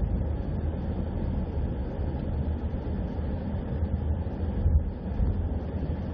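Vehicle driving along a road: a steady low rumble of engine and tyre noise with no distinct events.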